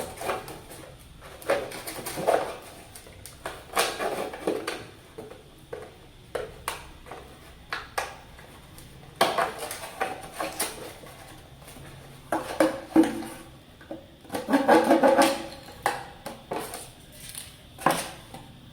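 A sharp knife stabbing and cutting a hole in a flat plastic bottle, with irregular clicks, knocks and crackling of the plastic as it is handled. There is a longer, busier stretch of cutting about three-quarters of the way through.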